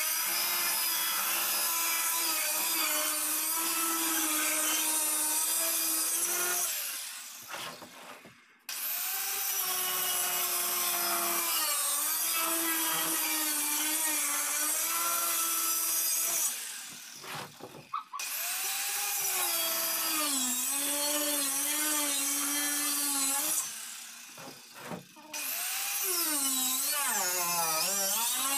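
Handheld electric circular saw cutting through the side of a plastic drum, its motor whine dipping and wobbling in pitch as the blade bites. It stops three times, winding down and then starting up again.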